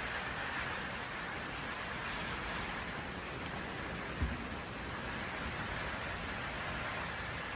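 Steady hiss of heavy rain and wind in a storm. There is a brief low thump about four seconds in.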